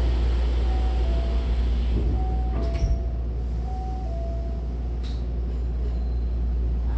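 Hankyu 1000-series commuter train doors closing. A high-low two-note chime repeats about every second and a half, and the doors shut with a thud about three seconds in. A steady low hum from the train runs underneath.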